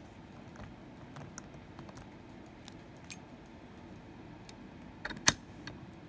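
Light metallic clicks and rattles of a padlock and its lock picks being handled in a vise, with one sharp click about five seconds in.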